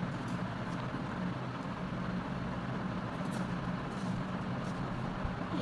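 Steady low hum under an even hiss of background noise, with a few faint ticks.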